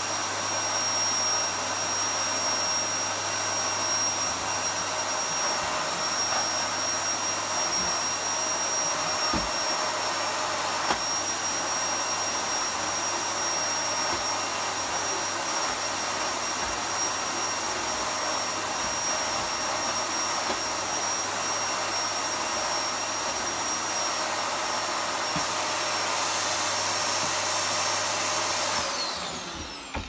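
Hoover Performer bagged cylinder vacuum cleaner running with a steady rush of air and a constant high whine while its floor tool is worked over a doormat. It is switched off about a second before the end, and the motor winds down with a falling pitch.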